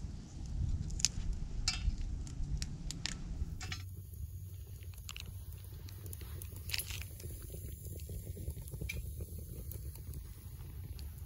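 Small sticks crackling and popping as kindling catches inside a Solo Stove wood-burning camp stove, dense crackles at first, then sparser pops after about four seconds, over a steady low rumble.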